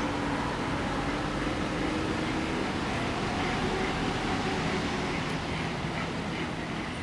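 Steady city street traffic noise, a continuous low rumble of passing vehicles.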